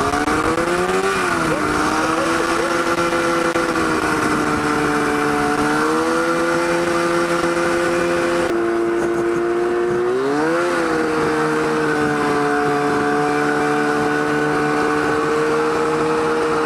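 Two-stroke snowmobile engine in a go-kart running at high, steady revs under way. Its pitch swells up briefly about a second in and again about ten seconds in, then settles back to a steady high note.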